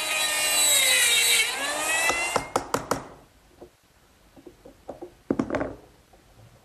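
A handheld router cutting dovetails in oak boards clamped in a dovetailing jig. The motor runs loud with a steady whine, its pitch drops partway, and the sound dies away about three seconds in. A few light knocks follow.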